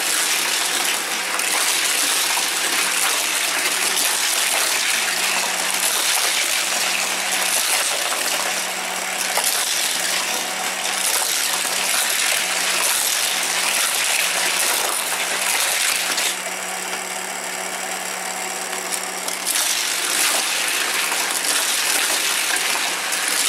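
Battery-powered booster of a toy race track running with a steady whir as it spins its wheels, while die-cast Hot Wheels cars rattle through it and around the plastic track.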